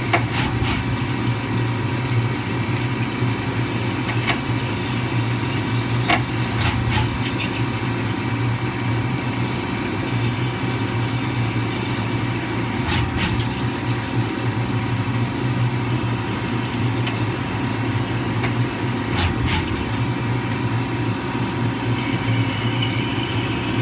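CNC lathe deep-drilling a titanium bar under flood coolant: a steady machine hum, with the hiss of coolant and the drill cutting. A few sharp ticks come now and then.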